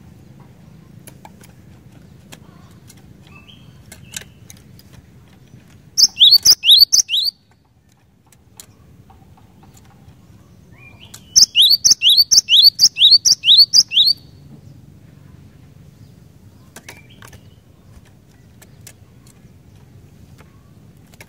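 Cinereous tit (gelatik batu) singing: two bursts of rapid, high, repeated two-part notes at about five a second, a short burst about six seconds in and a longer one of about three seconds past the middle.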